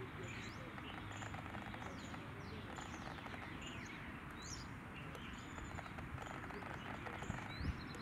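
Outdoor bird ambience: many short, high chirps and quick falling calls from several small birds over a steady background hiss. There is one brief low thump just before the end.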